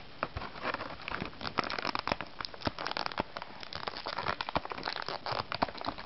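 Dense, irregular crinkling and small plastic clicks from handling a small plastic toy figure and fitting its clip-on dress.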